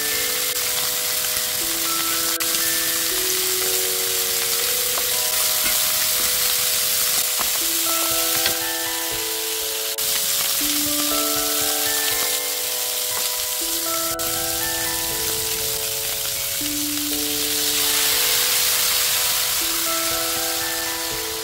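Pork back ribs sizzling as they sear in hot oil in a frying pan, a steady hiss that grows louder about three-quarters of the way through, when the soy-based seasoning sauce goes in. A light background melody of plinking bell-like notes plays over it.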